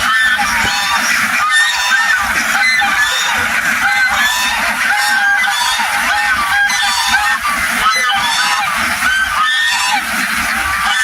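A huge flock of domestic ducks calling all at once: a dense, steady chorus of overlapping quacks with no pause.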